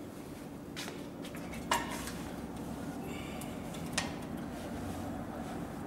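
Cowboy CB4500 heavy-duty leather sewing machine: a steady low hum with a few sharp metallic clicks as two layers of saddle skirting leather are set under its presser foot.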